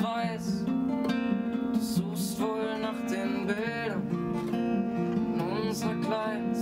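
Steel-string acoustic guitar with a capo, fingerpicked and strummed in a steady chordal pattern. A man's voice sings sliding phrases over it in places.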